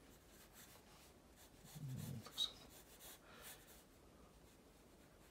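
Faint pencil strokes scratching on drawing paper as a figure is sketched, with a brief low sound and a small tick about two seconds in.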